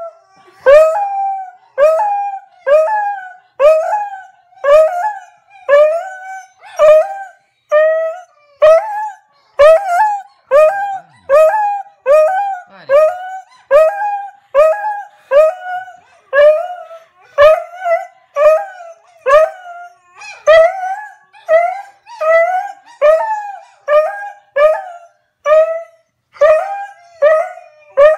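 Hound dog baying: a long, unbroken string of short howls, a little more than one a second, each rising sharply and then holding briefly.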